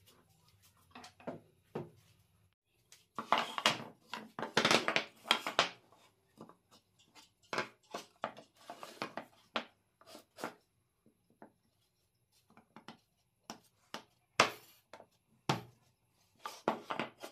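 Wooden rings and discs being handled and set down on a tabletop: irregular knocks and clatters of wood against wood and against the table, with a busy run of them a few seconds in and a few sharper single knocks near the end.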